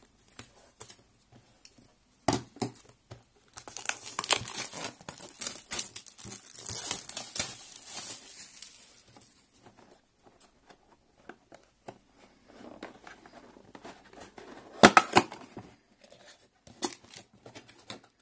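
A cardboard box being opened by hand: several seconds of tearing and scratching at the box, then quieter rubbing of cardboard and a sharp cardboard snap about fifteen seconds in.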